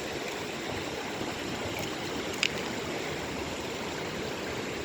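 Steady rush of flowing river water, with one brief click about two and a half seconds in.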